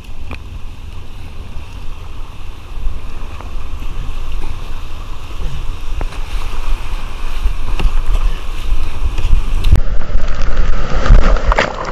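River whitewater rushing, growing louder and more churning near the end as the kayak reaches the lip of the waterfall, with sharp splashes of kayak paddle strokes. Wind buffets the microphone with a low rumble throughout.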